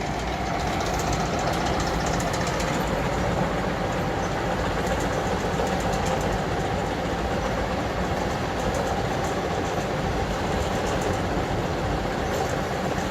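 Old slurry mixer running steadily: a continuous engine-and-machinery drone with a steady hum.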